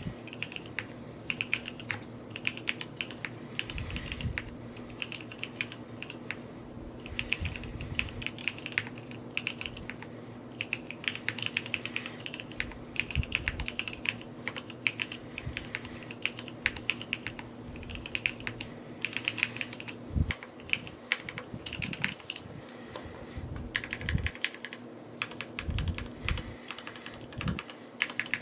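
Typing on a Neo65 Cu mechanical keyboard: quick runs of keystroke clicks in bursts with brief pauses, and a few deeper, heavier key thumps in the second half.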